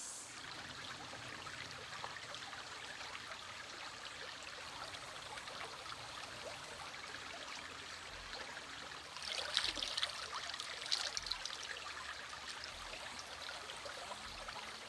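Small stony creek trickling and babbling steadily, with a burst of louder splashing and gurgling about nine seconds in as a water bottle is dipped and filled in the stream.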